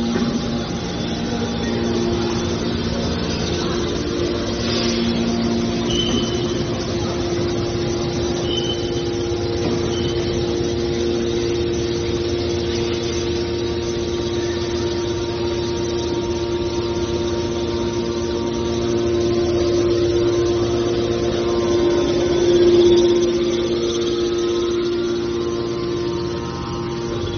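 Hydraulic scrap metal baler running: a steady hum from its hydraulic pump and motor, swelling louder for a moment about three-quarters of the way through.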